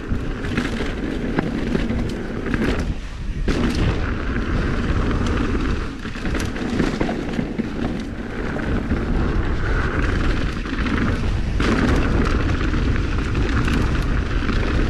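Mountain bike riding fast down dirt singletrack, heard through a camera microphone: a steady, loud rumble of wind buffeting the mic, broken by frequent knocks and rattles of the bike over bumps.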